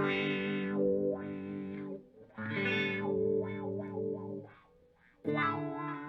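Electric guitar played through a Moen Jimi Nova uni-vibe pedal: three chords struck, each ringing and fading, with the pedal's fast, even throb pulsing through the sustain.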